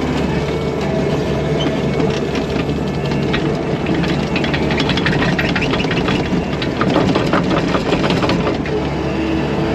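A loader's engine runs steadily while its bucket spreads dirt. From about three seconds in to eight and a half seconds in there is a stretch of rapid clanking and rattling.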